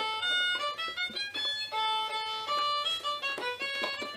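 Electronic keyboard playing a melody of held notes, one after another, the pitch stepping up and down.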